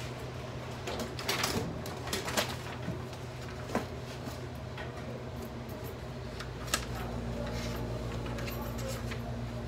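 Cardboard file folders being handled over a hanging-file drawer: rustling and a few light knocks and clicks, over a steady room hum that grows fuller about six seconds in.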